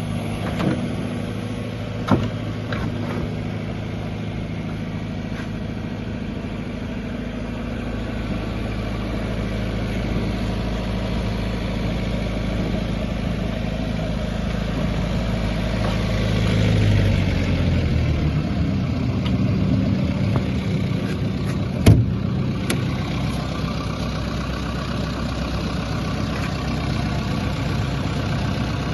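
Diesel engine of a JCB 86C-1 midi excavator running steadily; a little over halfway through its note rises and settles at a different steady pitch. A few light clicks near the start and one sharp clank later on.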